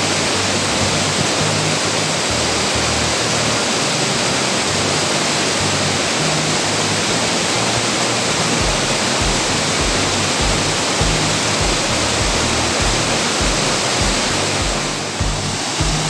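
Water from a stepped waterfall cascading over rock ledges, rushing steadily.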